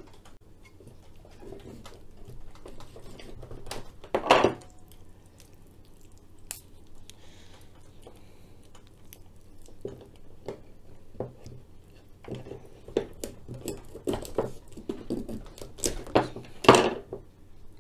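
Raw chicken wings being handled and cut through at the joint with a large kitchen knife on a wooden cutting board: soft wet handling of the meat and scattered knocks of the knife on the board. The loudest knocks come about four seconds in and near the end.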